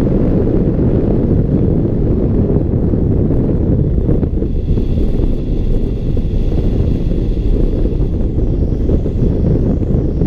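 Rushing wind buffeting the microphone of a camera mounted on the wing of a tandem hang glider in flight, a loud steady low rumble.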